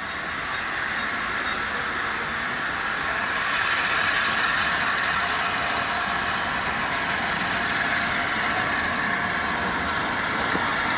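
LNER A1 Pacific steam locomotive 60163 Tornado drawing nearer with a steady rushing hiss of steam, growing louder over the first few seconds and then holding.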